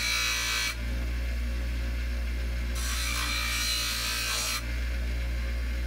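A 6-inch Ohio Forge bench grinder running with a steady motor hum, while a bolt is pressed against its wheel: a harsh grinding rasp at the start, then again for about two seconds in the middle.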